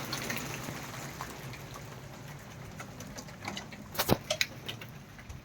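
Rain falling and pattering, a steady hiss that slowly eases off, with scattered drop ticks and one sharp knock about four seconds in.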